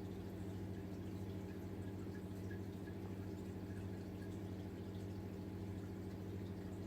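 A steady low hum made of several even tones, with a few faint ticks scattered through it.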